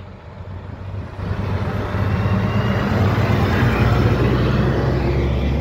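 Diesel engine of a loaded log truck approaching and passing close by, growing louder over the first two seconds, then loud and steady as it goes by, with tyre noise.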